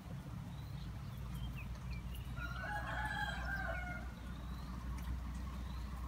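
A rooster crows once, starting about two seconds in and lasting about two seconds, over a steady low rumble.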